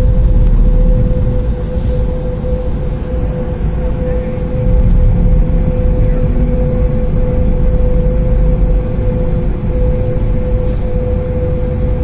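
Cabin noise of a Boeing 717 rolling on the ground after landing: a steady low rumble with a steady hum over it. The level dips for a few seconds about a second in and rises again near the middle.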